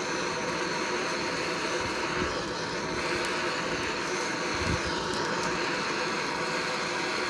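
Handheld gas blowtorch burning with a steady hiss, its flame heating a calcium hypochlorite and magnesium powder mix.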